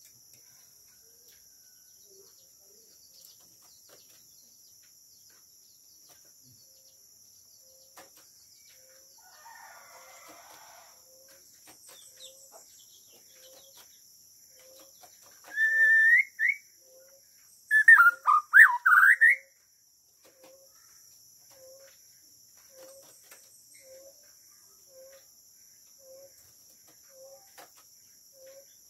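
White-rumped shama singing short song phrases between long quiet stretches: a single rising whistle about halfway through, then a burst of several quick sweeping whistles a couple of seconds later.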